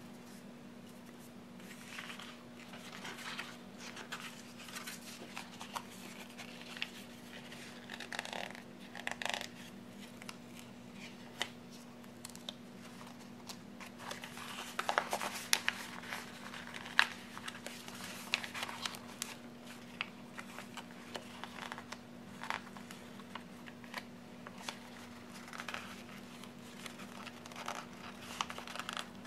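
Paper and sticker handling: a sticker book's pages rustling, stickers peeled off their backing sheet and pressed onto planner pages, in scattered soft rustles, scratches and taps over a faint steady hum.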